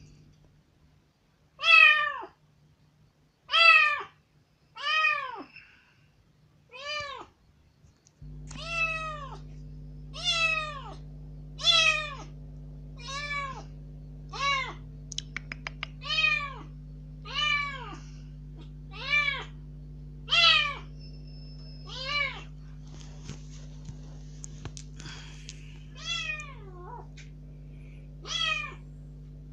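Young kitten meowing loudly and over and over, about one cry every one to two seconds, each rising then falling in pitch. These are plaintive cries of a newly rescued kitten at the window, demanding to be let outside.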